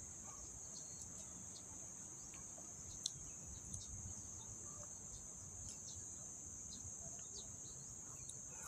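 Steady, high-pitched drone of insects in the trees, with a few faint scattered ticks and a low rumble underneath.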